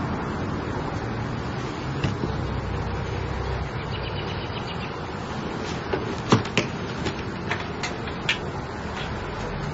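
Honda CL70's small single-cylinder four-stroke engine idling steadily, with a handful of sharp clicks and knocks from about six to eight and a half seconds in.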